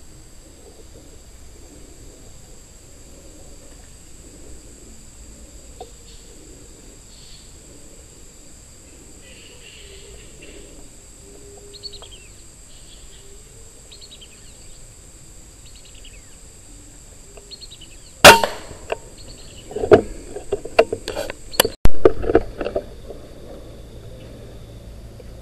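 A single sharp air-rifle shot about eighteen seconds in, fired at a flying fox hanging in a tree, followed by a few seconds of loud irregular knocking and rustling with one more sharp click.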